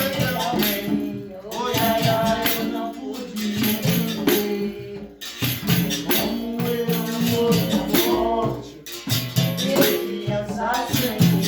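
Capoeira roda music: a berimbau being struck in a steady rhythm with a caxixi shaker rattling, under singing.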